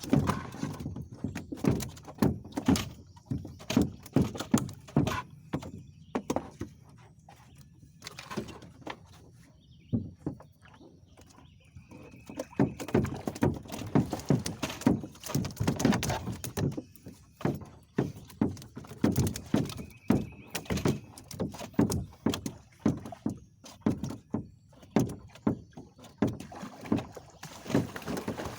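Irregular knocks and thumps against a boat, often in quick runs, with a quieter stretch about a third of the way in.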